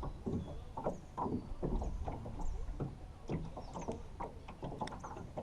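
Light, irregular knocks and water slaps around a small jon boat, a few a second.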